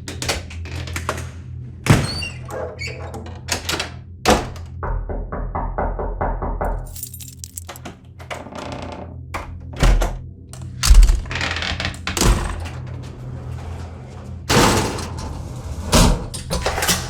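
A quick succession of door sound effects: thuds and slams, with latch and handle clicks and a short run of rapid rattling clicks, over a low steady music bed. The loudest slams come about ten and eleven seconds in.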